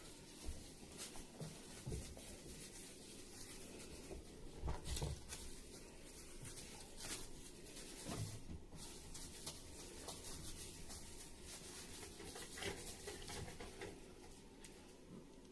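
Scattered light rustling and scratching with a few soft thumps, typical of cats moving about and playing on a floor.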